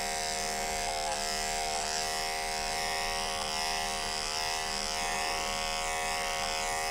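Electric dog grooming clipper with a #5 blade running steadily, a continuous buzz whose pitch wavers slightly as the blade cuts through matted dog hair.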